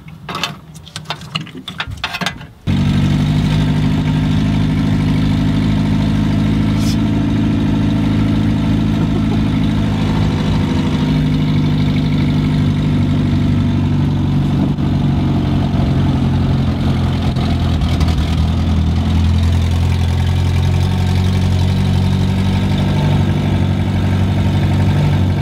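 Short knocks and clicks, then about two and a half seconds in an engine sound starts suddenly: the Land Rover Series 3's 2.25-litre four-cylinder petrol engine running at a steady idle.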